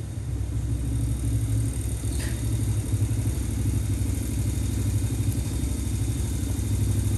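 A steady low motor rumble that flutters rapidly, with a faint click about two seconds in.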